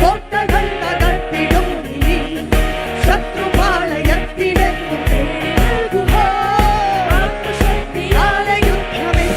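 Worship song: a voice singing a melody over a full band, with a steady kick-drum beat a little over twice a second.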